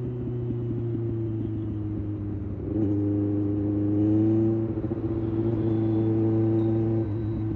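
Kawasaki ZX6R's inline-four engine running on the road: steady and fairly low at first, then the throttle opens about three seconds in and the engine holds a steady pitch, with a brief dip in sound near the end.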